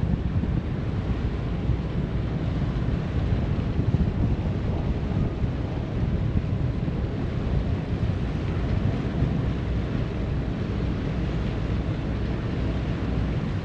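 Wind noise on the microphone aboard a moving harbour ferry, wavering in strength, over the rush of water past the boat.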